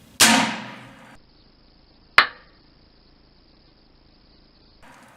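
Shooting a .22 Short from a Heritage Rough Rider single-action .22 revolver: a sharp report about a fifth of a second in with a ringing decay, then a second sharp crack about two seconds later.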